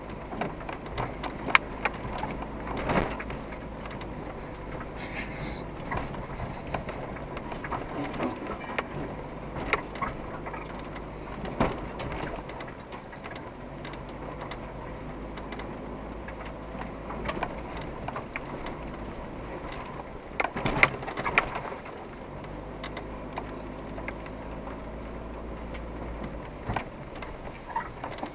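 SUV driving slowly over a rough, rutted dirt track, heard from inside the cabin: a steady low engine hum with frequent knocks and rattles as the suspension and body take the bumps, the knocks thickest about 21 seconds in.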